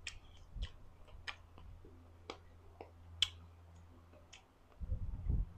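Close-miked chewing of crunchy guava slices: sparse crisp crunches and mouth clicks, about one a second, with a duller, lower sound near the end.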